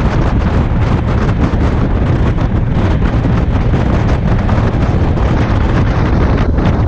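Heavy wind buffeting the microphone as a center-console fishing boat runs across the lake. The boat's motor and the water rushing under the hull sound beneath it as a steady low noise, with frequent brief gusts.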